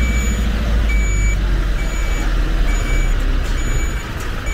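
Reversing alarm beeping steadily, about once a second, over the loud low running of a heavy vehicle's engine.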